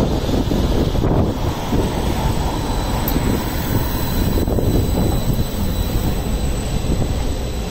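CAF Urbos 3 tram moving past close by on street track, a steady running noise of motors and wheels on the rails.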